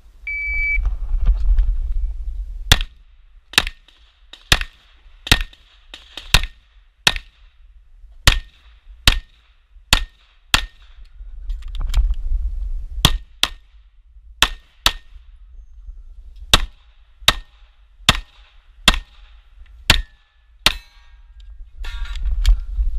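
A shot timer's start beep, then a Glock 34 9mm pistol firing about twenty shots, mostly in quick pairs, across a USPSA stage. Between strings there is a low rumble of wind and movement on the body-worn camera's microphone as the shooter runs between positions.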